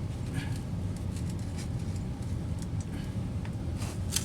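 Scattered light clicks and knocks of pump-basin parts being handled and fitted, with a sharper knock near the end, over a steady low rumble.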